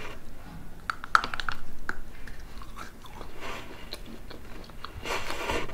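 Biting and chewing a stick of homemade edible chalk made from starch and powdered sugar: several sharp crunches, the strongest about a second in, between softer chewing.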